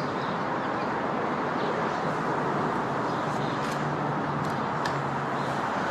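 Steady outdoor rushing noise with a faint low hum and a few faint clicks; no voices.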